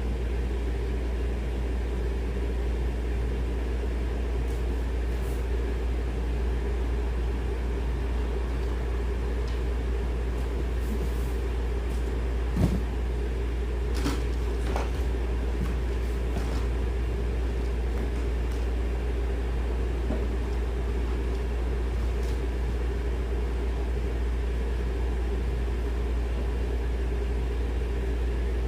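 Steady low hum with no change in level, with a few faint clicks and one sharp knock about halfway through.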